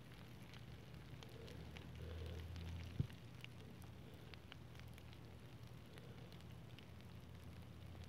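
Faint handling sounds as liquid electrical tape is brushed onto a bare knob-and-tube wire: scattered small ticks and crackles and one soft knock about three seconds in, over a steady low hum.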